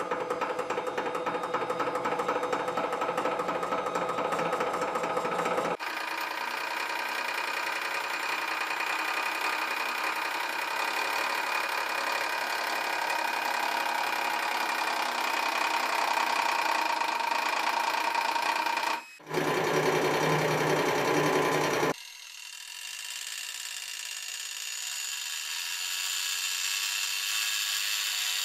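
Hydraulic press running with a steady motor whine while the ram slowly crushes a brass piece. The pitch and tone of the whine change abruptly a few times, with a brief drop about nineteen seconds in.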